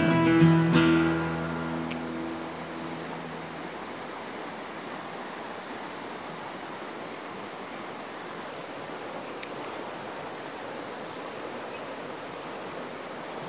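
Acoustic guitar music that breaks off about a second in and fades away, giving way to a steady rushing noise of flowing river water.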